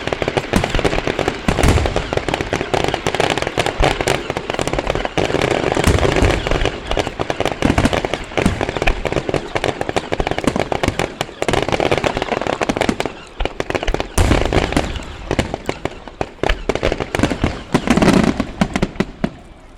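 Fireworks going off: a dense run of rapid bangs and crackles, with deeper booms now and then, thinning out near the end.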